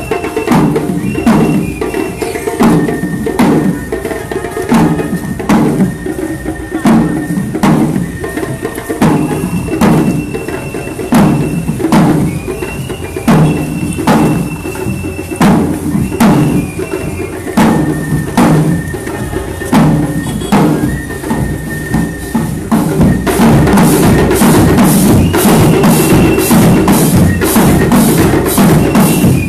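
Marching band drums, bass and snare, beating a steady march rhythm, with a high melody of held notes above. About 23 seconds in, the drumming turns denser and louder.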